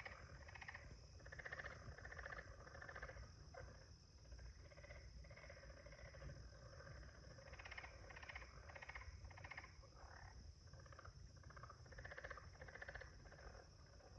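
Faint night chorus of overlapping pulsed, croaking animal calls, repeating on and off, which the uploader guesses are frogs, over a steady high-pitched hum.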